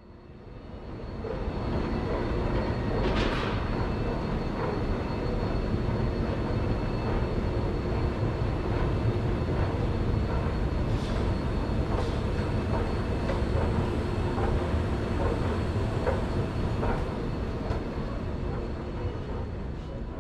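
Steady low rumbling noise with a few faint steady tones and scattered small clicks, fading in over the first two seconds.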